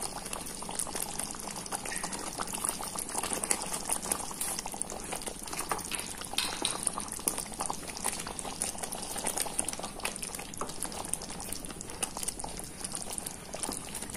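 Thick butter chicken gravy bubbling and popping as it simmers over a low flame, with a wooden spatula stirring through it.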